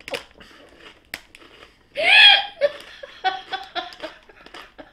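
A woman laughing: a loud high-pitched burst about two seconds in, then a run of short laughs. A crisp packet crinkles as it is handled.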